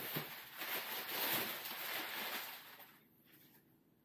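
Crumpled brown packing paper rustling and crackling as it is pulled from a cardboard box, dying away about three seconds in.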